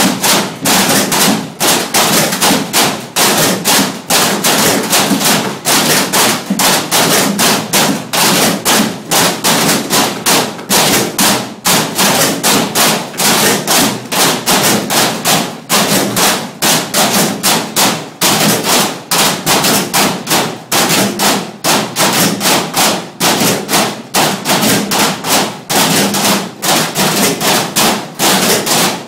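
Galvanized metal trash cans played as drums by a group, a fast, steady rhythm of strikes that keeps going throughout.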